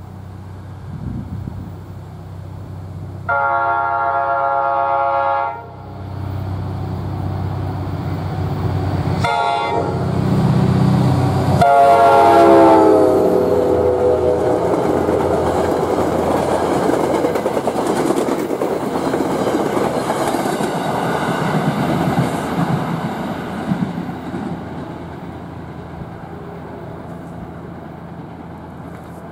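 Commuter locomotive's Nathan K5LA air horn sounding for a grade crossing: a long chord, a brief toot, then another long blast that drops in pitch as the engine goes by. Then the rumble and wheel clatter of the passing coaches, which fades away.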